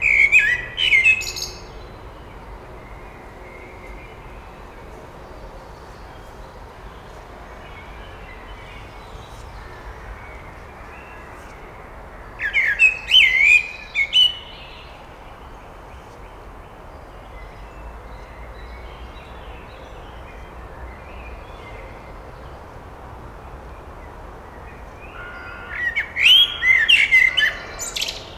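Male Eurasian blackbird singing: three fluty, warbled phrases about twelve seconds apart, each ending in a high, squeaky twitter.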